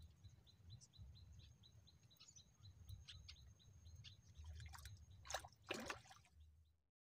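Faint bird chirping in short repeated notes, about three a second, over a thin steady high tone and a low wind rumble. About five seconds in come two louder sharp knocks, then the sound fades out.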